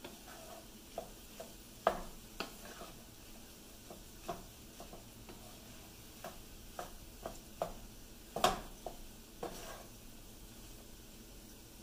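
Wooden spatula stirring and tossing fried rice in a frying pan over a faint steady sizzle. Short irregular scrapes and knocks of the spatula against the pan come throughout, the loudest about two seconds in and again past the middle.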